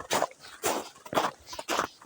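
Footsteps of a person walking, about two steps a second, each a short scuffing crunch.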